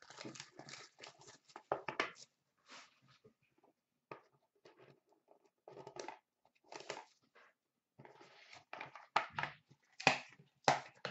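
Hands opening a cardboard trading-card box: irregular crinkling, tearing and scraping of packaging in short bursts, with brief pauses.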